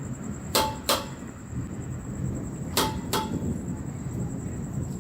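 Two pairs of sharp metallic ticks, each ringing briefly on a clear tone, the ticks in each pair about a third of a second apart, over a steady low background noise.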